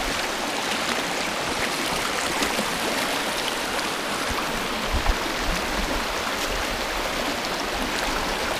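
Small rocky creek rushing and splashing steadily over stones.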